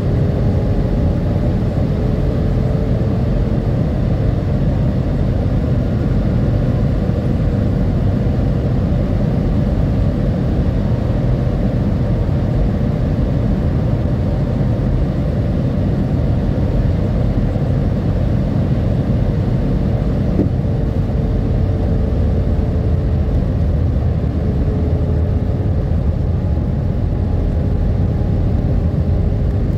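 Jet airliner cabin noise at a window seat: engines and rushing air make a deep, steady roar, with a faint hum that wavers slightly in pitch.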